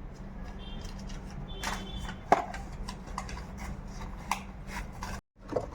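Light clicks and knocks of parts and tools being handled over a steady low hum, with one sharper click about two seconds in. The sound cuts out for a moment near the end.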